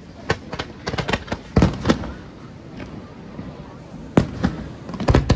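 Aerial fireworks shells bursting in a rapid series of loud bangs, one cluster in the first two seconds and another about four seconds in, with a short lull between.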